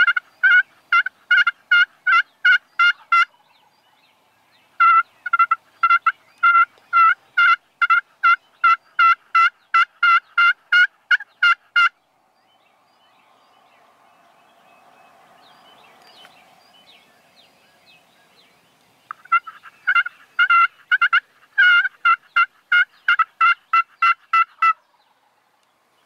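Pot-style friction turkey call worked with a striker, giving long runs of hen yelps at about three to four even notes a second. There are three runs, with a faint scratchy hiss in the gap between the second and third.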